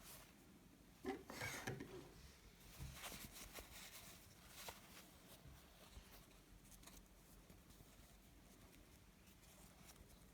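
Near silence with faint handling noises: a short patch of soft rustling and tapping about a second in, then a few light clicks.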